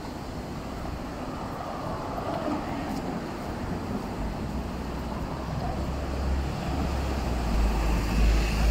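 City street traffic noise, with a deep rumble that grows louder near the end.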